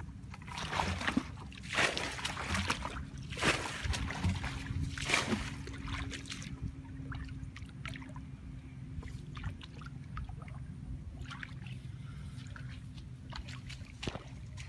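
Footsteps wading through shallow muddy water in a flooded rice field: a series of sloshing splashes in the first five seconds or so, then quieter small splashes and rustles. A faint steady low hum runs underneath.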